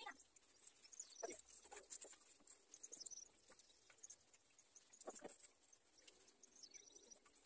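Near silence with faint, scattered small bird chirps and other faint animal calls.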